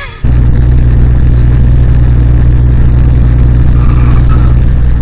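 Loud, steady low rumble of a car driving: engine and road noise, starting abruptly about a quarter of a second in.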